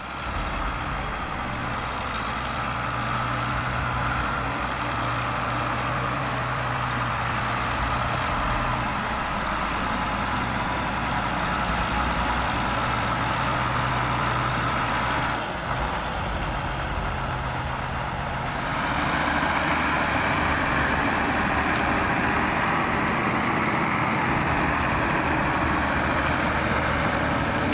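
Farm tractor engine running steadily while the tractor works in deep mud. It gets louder and harsher about two-thirds of the way through.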